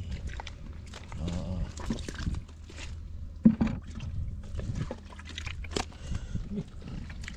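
Muddy water sloshing and splashing as a hand scoops and gropes in a small water hole, catching catfish, with irregular wet slaps and knocks; one sharp knock about three and a half seconds in.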